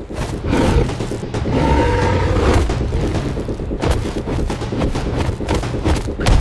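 Cinematic fight sound effects for an animal battle: a dense, loud run of heavy thuds and impacts over a deep low rumble, with sharper clusters of hits about four and six seconds in.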